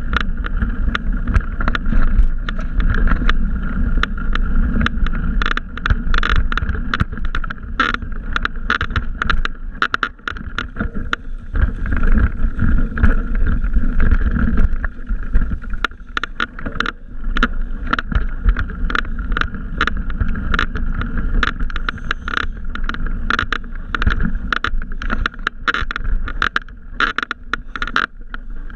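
Bicycle rolling over a rough dirt trail: a dense, irregular clatter of knocks and rattles from the bike going over the ground, over low wind rumble on the microphone.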